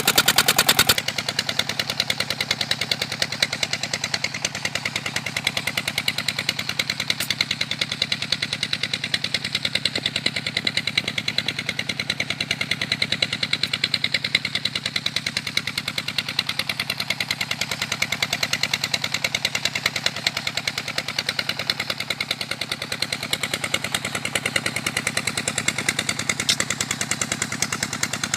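Engine of a shrimp-pond waste suction pump running steadily with a rapid, even firing beat. It is louder for the first second, then settles at a lower steady level.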